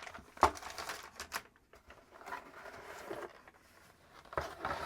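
Cardboard packaging and paper inserts being handled as accessories are taken out of a motherboard box: a few light taps and knocks with rustling in between.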